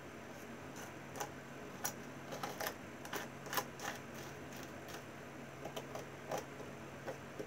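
Plastic palette knife dabbing and scraping a gritty sand-and-glue paste onto a model's path, giving irregular light clicks and scrapes.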